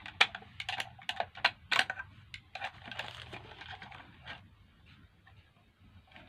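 Small hard plastic and metal blender parts being handled: a quick run of light clicks and taps, then a brief scraping rustle about halfway through, tailing off to a few faint ticks.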